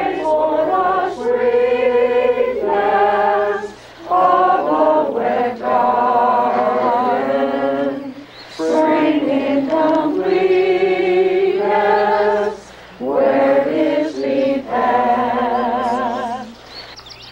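A congregation of mixed men's and women's voices singing a hymn together, in four long sustained phrases with short breaks between them.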